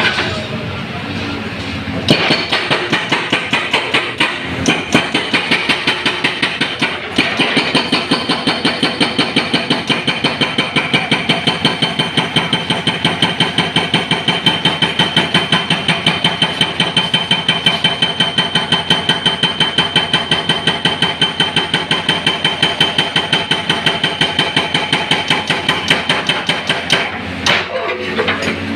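Excavator-mounted hydraulic breaker hammering a concrete road slab in a rapid, steady rhythm of about five blows a second. The hammering starts about two seconds in and stops shortly before the end, with the excavator's engine running under it.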